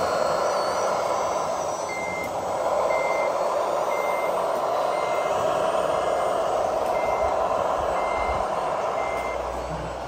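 RC scale Komatsu WA475 wheel loader running with a steady engine sound while its reversing beeper sounds eight short, even beeps about once a second, starting about two seconds in: the loader is backing up.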